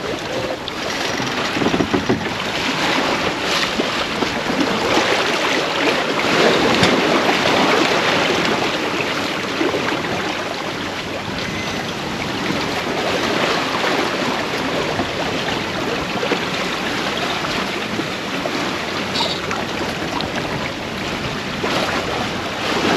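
Wind buffeting the microphone over water rushing along a sailboat's hull under sail, a steady noise that swells and eases with the waves.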